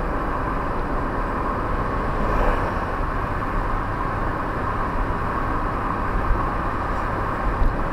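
Chevrolet Corsa Classic 1.0 cruising on a highway, heard from inside the cabin: engine, tyre and wind noise blended into a steady, even drone.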